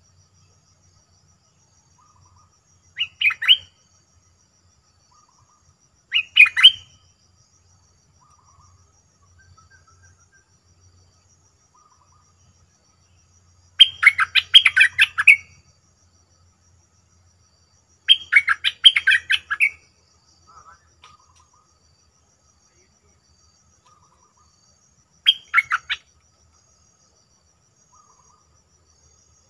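A bulbul (merbah) singing in short bursts of rapid, chirpy notes: five phrases, the longest two lasting about a second and a half, with quiet gaps between, and fainter, lower calls in the background between them.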